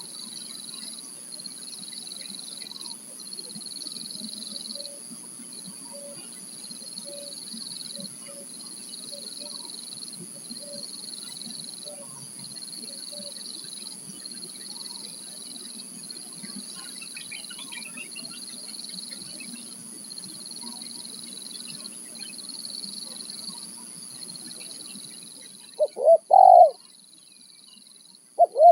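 Spotted dove (tekukur) cooing loudly twice near the end, each call a short run of quick notes. Before that only faint repeated notes are heard over a steady high-pitched buzz.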